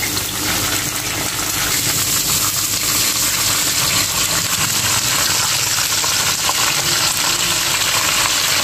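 Potato fries frying in hot oil in a pan: a steady, dense bubbling crackle that grows a little louder over the first few seconds.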